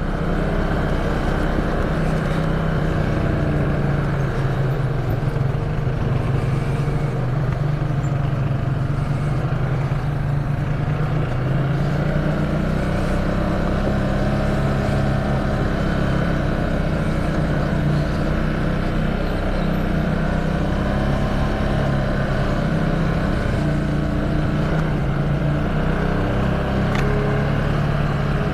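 An ATV engine running steadily as the quad bike travels along a trail, its pitch rising and falling a little with the throttle, over a steady rush of noise.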